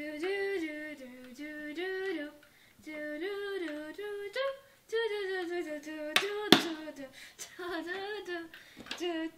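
A young girl singing a tune to herself in short phrases of held, stepping notes. A single sharp knock about six and a half seconds in.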